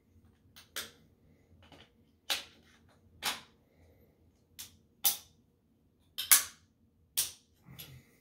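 Sharp metallic clicks and snaps of an AR-15's action being worked by hand and dry-fired, about eight of them at irregular intervals.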